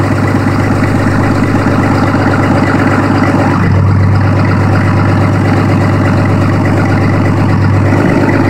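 Cummins 6.7 inline-six turbo-diesel with a 5-inch straight-piped exhaust, idling steadily. Its tone shifts slightly between about four and eight seconds in.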